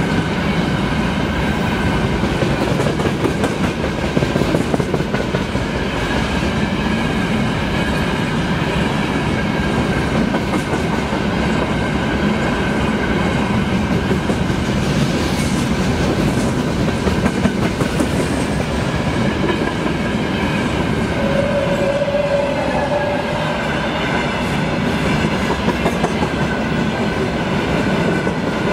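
Freight train's open gondola wagons rolling past close by: a steady rumble of steel wheels on rail with the clickety-clack of wheels over rail joints, and a thin high ringing tone running through it.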